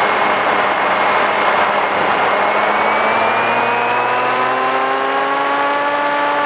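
Electric motor and APC propeller of an FX-61 Phantom flying wing whining in flight, heard from the onboard camera with wind rush over it. The pitch holds steady at first, then climbs steadily over the last few seconds as the motor speeds up.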